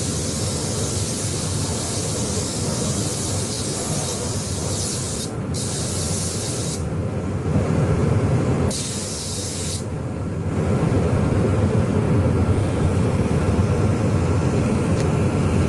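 Air spray gun hissing as blue automotive paint is sprayed in passes. The hiss breaks off about five seconds in, comes back twice in short passes, and stops about ten seconds in. A steady low rumble runs underneath.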